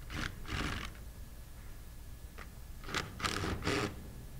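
3/8-inch-drive impact gun running in several short bursts, two near the start and three close together about three seconds in, as it backs out the suction manifold bolts of a 1-inch bolted metal double diaphragm pump.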